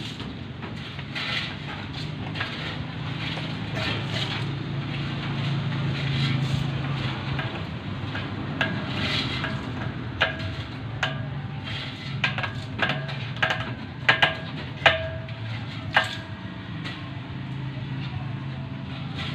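Blue PVC pipe and fittings being handled and pushed together: light clicks and knocks, coming in a quick run in the second half, some with a short ring. A steady low hum runs underneath.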